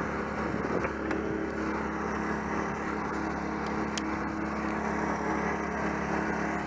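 Small boat's outboard motor idling steadily, with a few faint ticks.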